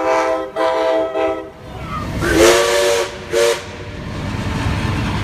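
A passing diesel freight locomotive's horn sounds two blasts, then a steam locomotive's chime whistle answers with one long and one short blast, its pitch swooping up at the start and a hiss of steam with it. A low rumble of the passing train runs underneath.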